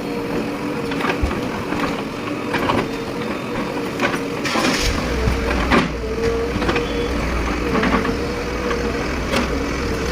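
JCB 3DX backhoe loader's diesel engine running steadily with a wavering whine, as the machine knocks and crashes through demolition rubble in a string of irregular impacts. A deeper low drone joins about halfway through.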